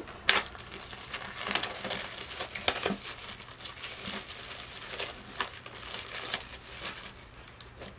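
Plastic cover being peeled off a hardcover book, crinkling and crackling irregularly. The crackles thin out near the end.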